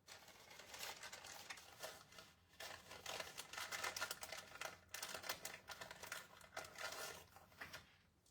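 Paper and plastic crinkling and rustling, with many quick small clicks and taps, as scrapbook embellishments are handled. It starts suddenly and tails off near the end.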